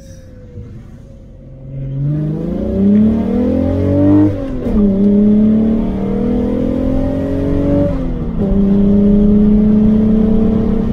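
Golf 3 VR6 six-cylinder engine, fitted with a tubular header and a metal-cell catalytic converter, heard from inside the cabin accelerating hard. About two seconds in the revs climb steeply, drop suddenly at an upshift, climb again, drop at a second upshift near the end, then pull on steadily.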